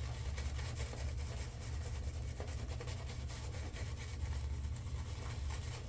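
Shaving brush working up shaving soap lather: a run of quick, scratchy brush strokes over a steady low hum.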